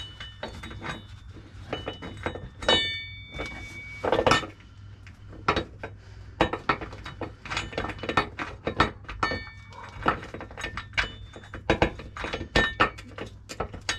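Scattered metal clinks and knocks as a bolt is pushed up through the air-suspension top bracket and threaded by hand into the van's chassis.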